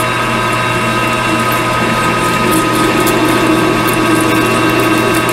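Metal lathe running with a parting tool feeding under power feed into spinning steel threaded rod, cutting it off: a steady machine whine over the hiss of the cut, with a lower hum joining about halfway through.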